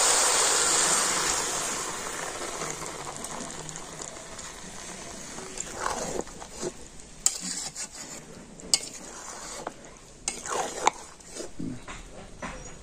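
Jujubes frying in hot mustard oil in a metal kadai sizzle loudly as melted jaggery goes in, the sizzle dying down over the first couple of seconds. Later a spatula stirs and knocks against the pan in scattered clinks over a faint sizzle.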